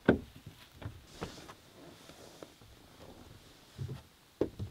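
Ram 1500 pickup's door latch clicking open sharply as the handle is pulled, followed by light knocks. Near the end come soft thumps and a click of a child's shoe stepping onto the truck's running board.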